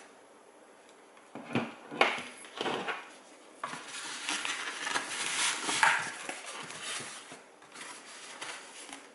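Handling noise as plastic Fat Shark Predator V2 FPV goggles are fitted onto a foam mannequin head: a few sharp knocks and clatters starting about a second and a half in, then several seconds of rubbing and scraping as the strap is pulled over the foam head.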